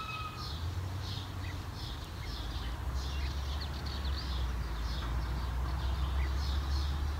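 Birds chirping outdoors, short high calls repeating about twice a second, over a steady low rumble that grows stronger about half a second in.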